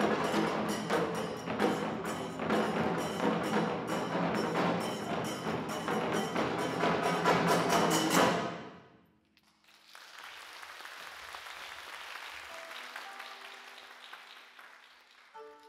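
Japanese taiko drum ensemble playing fast, dense strokes that crowd closer together and stop abruptly about eight seconds in. After a brief hush an audience applauds for several seconds, fading, and a koto begins plucking right at the end.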